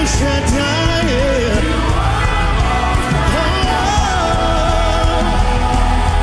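Live gospel worship music: a sung melody, with other voices joining, over a steady band with sustained keyboard chords and bass.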